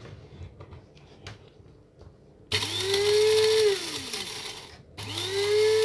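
Electric spice grinder grinding crisp oven-dried shrimp shells into powder: a few faint handling clicks, then the motor whines up to speed, runs about a second and winds down with a falling pitch, and starts again near the end.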